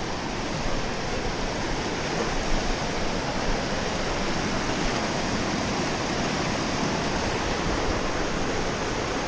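Mountain river rushing over rapids close by: a steady, unbroken noise of white water.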